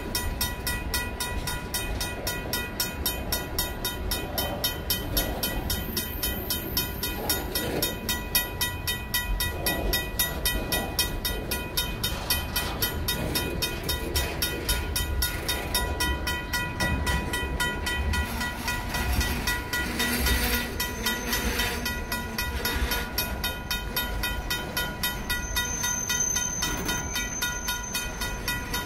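Freight cars rolling past slowly, their wheels rumbling on the rails, while a RACO mechanical crossing bell rings with rapid, even strikes.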